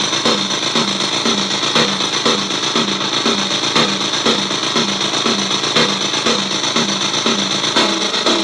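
Circuit-bent Korg DDD-1 drum machine sent through a digital effect: a glitchy drum hit repeating about two or three times a second over a steady hiss of digital noise.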